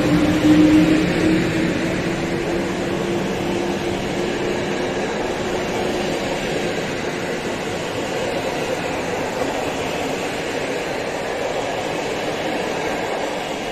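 PKP Intercity EP07 electric locomotive and its passenger coaches passing close by. A steady hum from the locomotive fades over the first few seconds, leaving the even rumble of the coaches' wheels on the rails.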